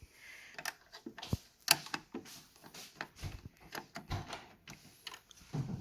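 Irregular clacks and knocks from a Yamaha Clavinova CLP-230 digital piano, about a dozen hits of uneven loudness, some with a dull low thud and a louder sharp knock near the second mark.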